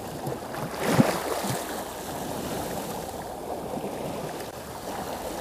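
Sea water washing and lapping against the rocks of a breakwater, a steady noisy rush with wind on the microphone. A single brief sharp sound stands out about a second in.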